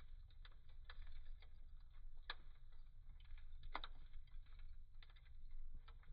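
Wood fire burning in a fireplace, crackling with irregular sharp pops and snaps over a steady low background; the loudest snaps come a little over two seconds in and just under four seconds in.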